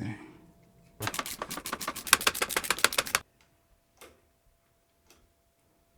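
A fast run of about twenty sharp mechanical clicks, roughly nine a second, lasting just over two seconds, followed by a few faint single clicks.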